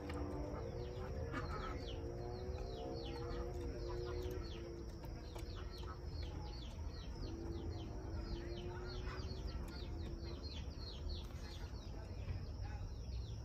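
Small birds chirping in quick, repeated falling notes. A few low, drawn-out pitched calls come over them, and a steady low rumble runs underneath.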